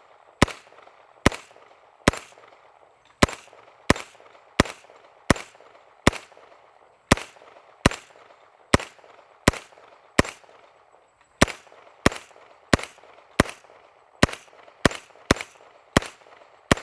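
CMMG Banshee MK10 10mm pistol fired semi-automatically in a steady string of about two dozen sharp shots, roughly one every 0.7 seconds, each with a short echo tail. There is a slightly longer pause just past the middle.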